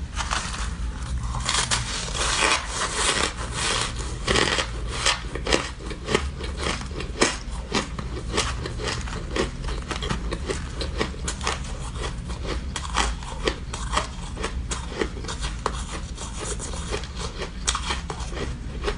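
Ice being chewed close to the microphone: dense, irregular crunching with many sharp cracks.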